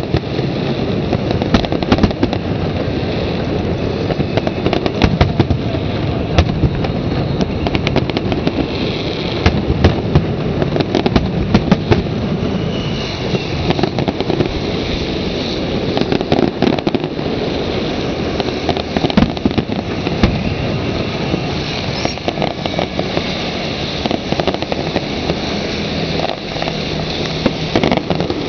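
Fireworks display: a dense, continuous barrage of sharp bangs and crackling shell bursts, several a second, with no pause.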